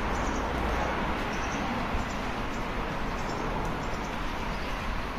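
Steady outdoor background noise: an even hiss of distant city sound, with a faint bump about two seconds in.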